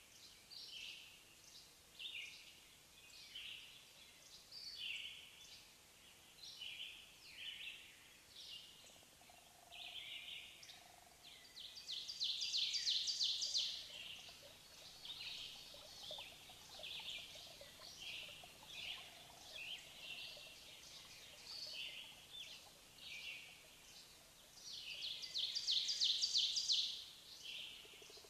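Birds chirping in short high calls about once a second, with two louder bursts of rapid trilling, one partway through and one near the end.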